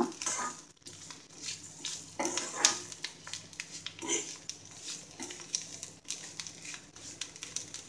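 A metal ladle stirring and scraping thick beaten rice flakes frying in oil in a kadai, with irregular clicks and scrapes of metal on metal.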